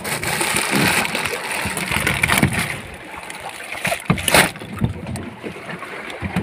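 Wind and sea noise on a small open boat, with a few short knocks and rustles as fish and a plastic bag are shifted in a plastic cooler box.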